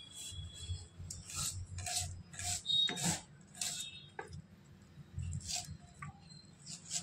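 Dry red onion skin being peeled off by hand, a run of short crinkly rustles and crackles at irregular intervals.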